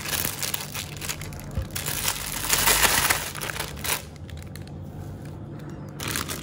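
Thin plastic piping bag crinkling and rustling as whipped cream is spooned into it and the bag is handled. It is loudest about two to three and a half seconds in, then quieter.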